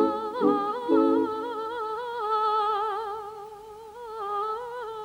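Unaccompanied voices singing without words, mimicking instruments: a few short low notes in the first second or so, under one long high note held with wide vibrato that slowly fades.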